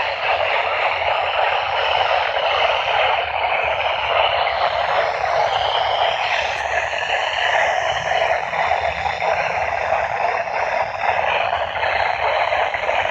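Weather-band radio receiver giving a steady static hiss, tuned to a weak, distant NOAA Weather Radio channel.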